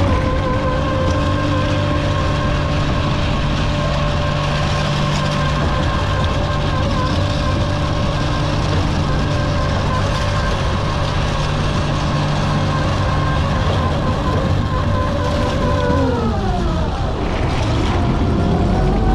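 Scallop dredger's machinery running with a steady whine. About sixteen seconds in its pitch falls away sharply, then rises again near the end as it speeds back up.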